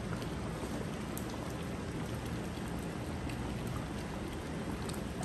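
Steady hiss of chicken qorma cooking in a large aluminium pot on a gas burner, the meat sizzling and simmering in its juices with faint scattered crackles.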